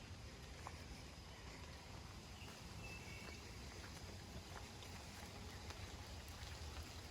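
Footsteps along a forest hiking trail, irregular and faint, over a low steady rumble of wind on the microphone. A brief bird chirp about three seconds in.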